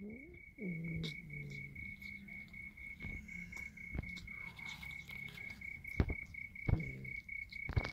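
Kittens meowing, a short falling meow about a second in and another near the end, over a steady, fast-pulsing high trill. A few sharp clicks sound as they eat from a foil food tray.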